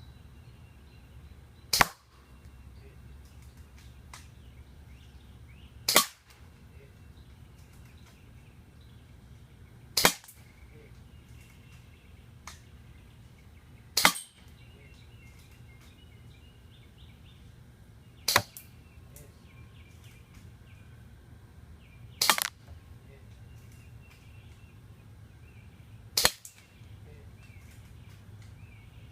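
AGM MP001 airsoft sniper rifle, a VSR-10-type bolt-action spring gun, firing seven single shots. Each shot is a sharp crack, about one every four seconds, as the bolt is cycled between shots.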